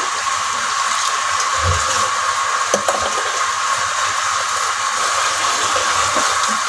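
Steady rushing hiss at an even level throughout, with a faint knock about three seconds in.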